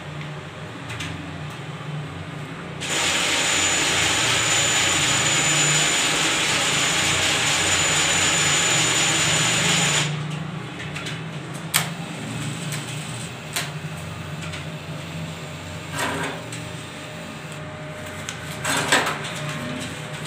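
ATM cash dispenser whirring steadily for about seven seconds, with a thin high whine on top, then cutting off sharply. A few sharp clicks and rustles follow as the notes are presented and taken.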